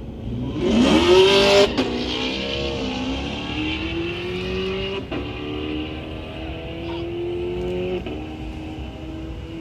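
Cars launching hard from a standing start and accelerating through the gears. The engine's pitch climbs steadily and drops sharply at each upshift, about two, five and eight seconds in. It is loudest at the launch.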